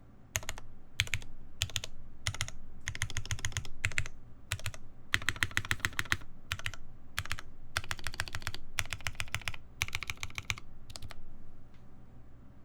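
Typing on a TGR Jane v2 CE mechanical keyboard with lubed Cherry MX Black linear switches, GMK keycaps and a carbon fiber plate: bursts of quick keystrokes separated by short pauses, stopping near the end.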